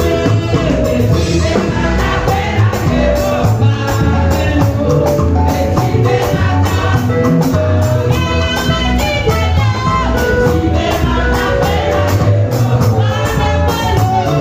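Music with voices singing over a steady, even beat.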